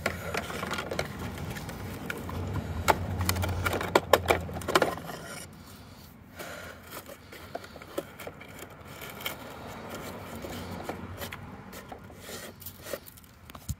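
Hard plastic toy garbage truck and toy bins handled on dirt: scraping, rubbing and a run of sharp clicks and knocks, busiest in the first few seconds, then sparser scrapes.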